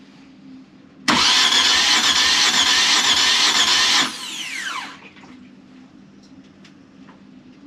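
A two-cylinder marine diesel engine is cranked on its starter motor for about three seconds during a compression test, then the starter whine falls away as it spins down. The test shows the engine far below its rated compression, which the owner puts down to bad piston rings.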